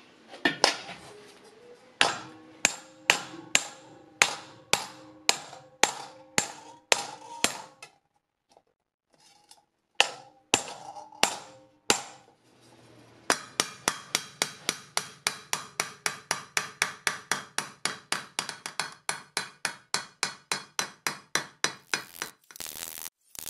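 Hammer beating the dents out of a sheet-steel electric motor fan cover: sharp metallic blows with a short ring. They come about two a second, then after a pause a faster even run of about four a second.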